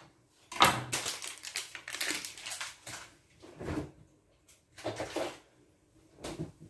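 Kitchen handling noises: a sharp knock just after half a second in, then about two seconds of crackling rustles and clicks, with a few shorter rustles later.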